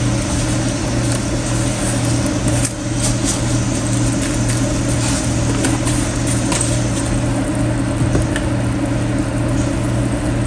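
Steady low hum of a running motor, with a few light clicks and taps scattered through.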